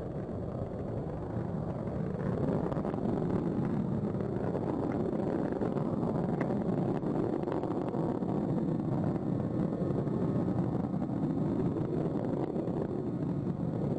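Space Shuttle Atlantis's rocket roar during ascent: the two solid rocket boosters and three liquid-fuel main engines firing, heard as a steady, rumbling noise that swells a little in the first couple of seconds and then holds even, with the main engines throttling back up.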